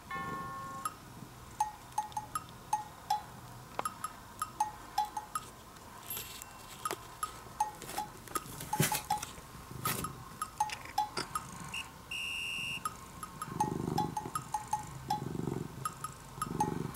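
Light, bouncy background music played on wood blocks and cowbell-like knocks, with short pitched taps in an uneven rhythm.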